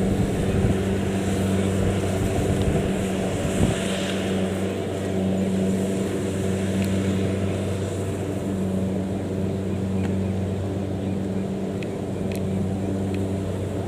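Kubota DC70 rice combine harvester running steadily, its diesel engine giving an even, unchanging hum.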